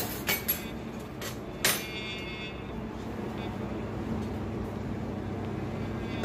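Metal tongs clinking against a stainless steel frying pan: a few sharp clanks in the first two seconds, the last one ringing briefly, over a steady low hum.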